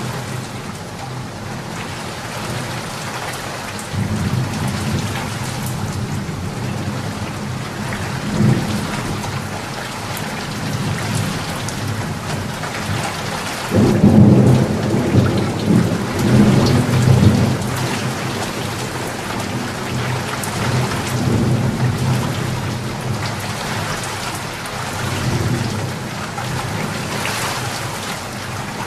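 Steady heavy rain falling, with rolling thunder. A low rumble sets in about four seconds in, and a louder peal of thunder rumbles for several seconds around the middle.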